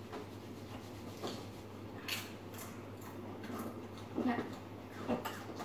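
Quiet, scattered crunches and crinkles of Doritos tortilla chips being handled and chewed, with a brief vocal sound about four seconds in.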